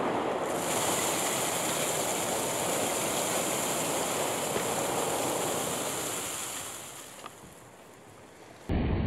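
Thousands of ping pong balls pouring out of a cardboard box onto a trampoline mat: a dense, steady rushing clatter that tapers off after about seven seconds. A different steady noise starts abruptly just before the end.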